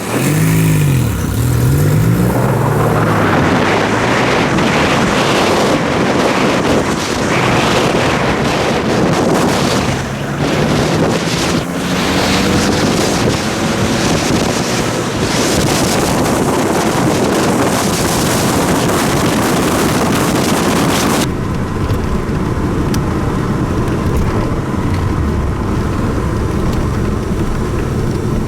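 DeLorean DMC-12's V6 through a DPI SPEC I stainless steel exhaust, driving under load, its pitch dipping and then climbing at the start, with heavy wind noise on the microphone. About three quarters of the way through the wind noise drops away suddenly, leaving a steadier engine note.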